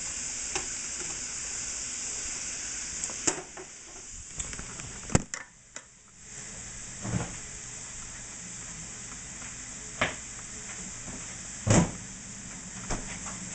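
Stir-fry vegetables and bison sizzling steadily in a frying pan on an electric burner, with a few sharp knocks of pan and utensils. The sizzle drops away briefly about five and a half seconds in.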